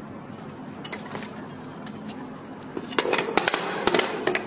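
Small hard plastic toy ball clicking and rattling as it rolls and is batted about on a tile floor: a few clicks about a second in, then a quick burst of clattering for about a second and a half near the end.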